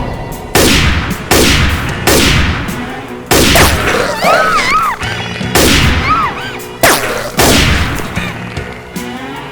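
Gunshot sound effects fired one after another, about one a second, each ringing out with a long fading tail. Brief wavering high-pitched tones come in near the middle.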